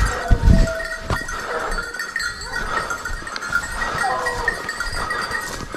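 Pack of hunting hounds baying at a wild boar they are holding at bay, in repeated wavering calls. Heavy footfalls and brush crunching right at the start.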